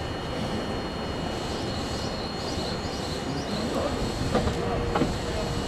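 Eizan Electric Railway 700-series electric railcar standing at the platform, its on-board equipment humming steadily under a thin high whine. Faint voices and a couple of knocks come in near the end.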